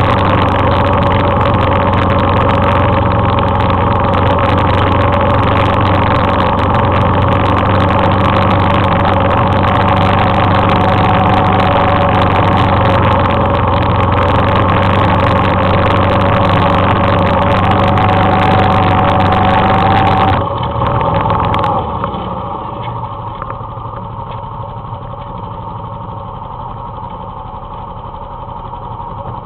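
Suzuki KingQuad ATV engine running steadily under load while towing a skier on a rope. About two-thirds of the way through it suddenly eases off and settles to a quieter, lower run.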